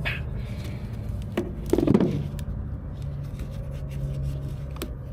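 A steady low machine hum runs throughout. Over it come light clicks and rustles of thermostat wire being handled and looped, with a brief louder scuffle about two seconds in.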